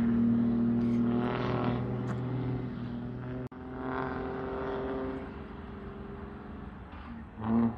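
Box truck with a modified exhaust pulling away, a steady deep exhaust drone that fades as the truck moves off, with a sudden brief break about three and a half seconds in.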